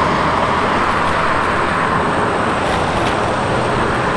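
Steady road traffic noise from cars passing on a busy city street, heard from a moving bicycle.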